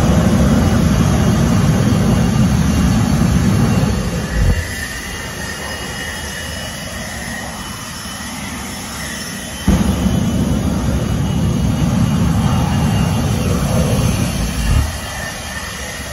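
A jet truck's jet engine roars in two blasts of about five seconds each, deep and loud, as it fires its afterburner flame at a burning car. Each blast ends with a brief surge. Between the blasts the engine keeps running at a lower level with a steady high whine.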